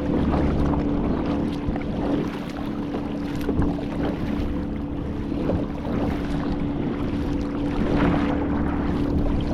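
Kayak under way while trolling: a steady mechanical hum at an even pitch, over a constant wash of water and wind noise on the microphone.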